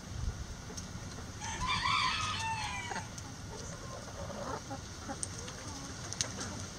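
A rooster crowing once, starting about a second and a half in and lasting about a second and a half, its last note falling in pitch. Soft hen clucking follows.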